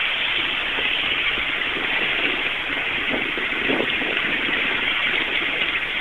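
5-inch gauge ride-on locomotive, driven by a brushless electric motor through a chain drive, running steadily along the track: a steady hiss with some uneven rumbling.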